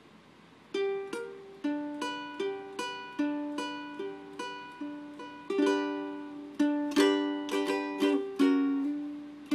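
A plucked string instrument strumming chords in a steady rhythm, about one to two strums a second, each ringing and fading: the instrumental intro of a song. It starts after a short pause and gets louder about halfway through.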